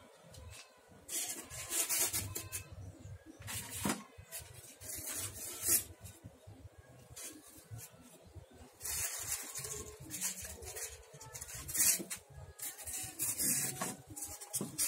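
Styrofoam sheets being handled and fitted, foam scraping and rubbing against foam and the plywood base in irregular short bursts, with a few light knocks.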